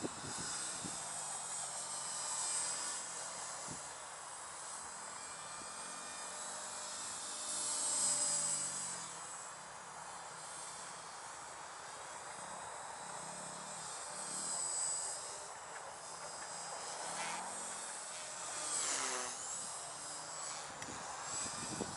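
Walkera V120D02S micro RC helicopter flying at a distance: a thin, high-pitched whine from its 9200 kv brushless motor and spinning rotors. The whine swells and fades several times as it manoeuvres, loudest about a third of the way in, and dips then rises in pitch near the end as it passes.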